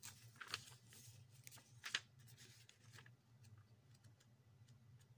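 Near silence: a few faint handling clicks and rustles, the sharpest about two seconds in, over a low steady hum.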